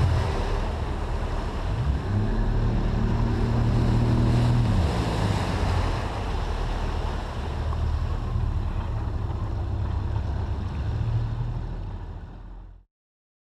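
A 90 hp outboard motor driving a small boat under way, with water rushing along the hull and wind on the microphone. The engine pitch rises about two seconds in and falls back about five seconds in; the sound fades and cuts off near the end.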